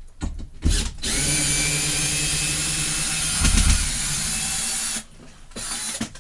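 Power drill running at a steady speed for about four seconds while turning a screw, then stopping; a short thump near the middle.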